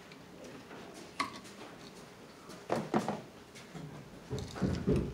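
Hand tools clicking and tapping against an outlet in its electrical box as a wire loop is set under a terminal screw: a few light sharp clicks, then duller low knocking and rumbling near the end.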